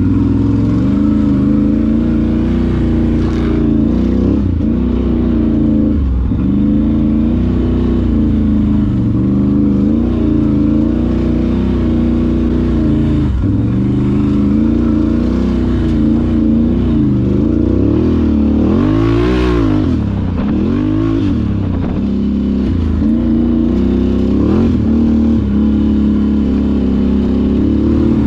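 ATV engine running under load, its revs rising and falling every few seconds, with a deeper drop and climb back about two-thirds of the way through.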